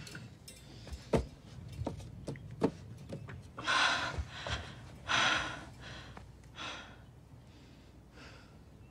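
Closet handling sounds: several small clicks and knocks from wire hangers and the wooden shelf in the first three seconds, then two or three short breathy rustles as the teddy bear is lifted down.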